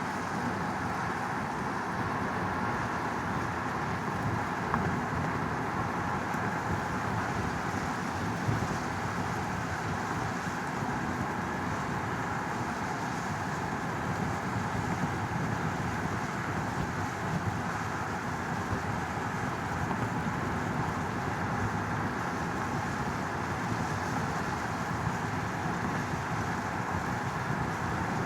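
Steady car interior noise: the even hum and rush of a car heard from inside its cabin, with a couple of small knocks about five and eight seconds in.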